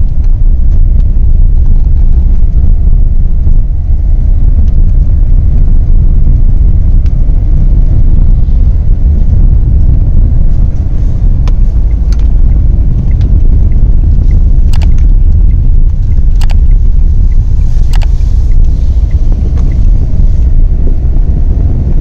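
Steady low rumble inside the cabin of a Tata Nexon driving on a wet road: road and tyre noise from the car's new MRF Perfinza tyres. A few sharp ticks come in the second half.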